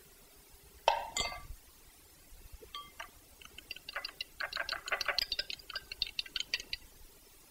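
A fork beating two raw eggs in a small glass bowl: a fast run of light clinks as the fork strikes the glass. It is preceded by a single sharp knock about a second in.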